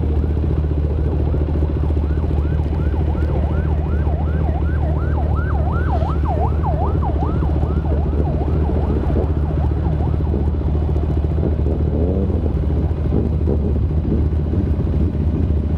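A siren sounding a rapid repeating yelp of falling sweeps, about two a second, for several seconds, over the steady low rumble of idling motorcycle engines. Near the end a motorcycle engine rises and falls in pitch as a bike moves off.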